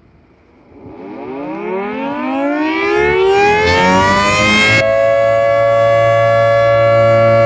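Federal Signal 3T22 three-tone siren starting up as the 5 PM whistle. About a second in it begins to wind up, rising in pitch and loudness, and by about five seconds in it settles into a loud, steady chord at full speed.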